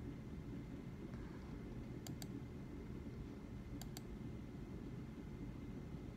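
Two quick double clicks of a computer mouse, one about two seconds in and one near four seconds, over a faint steady low room hum.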